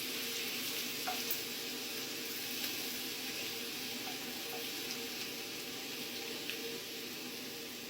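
Garlic frying in hot oil in a pan, a steady sizzling hiss with a few faint clicks.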